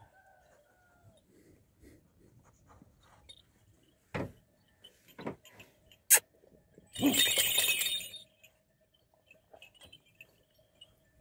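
Kangal sheepdogs in metal-spiked collars moving close by: a few sharp clicks and knocks, then a loud jangling rattle lasting about a second, about seven seconds in.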